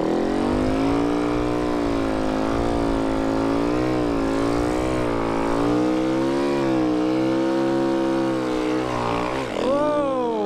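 Snow bike's motorcycle engine running under throttle, its pitch rising and falling repeatedly, with a quick sharp rev up and back down near the end.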